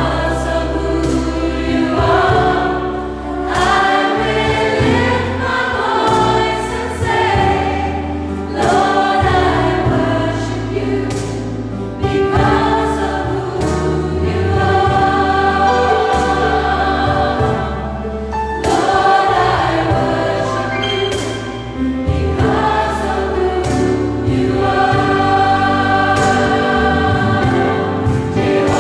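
Mixed gospel choir singing, with a female soloist on a handheld microphone, over sustained low bass notes.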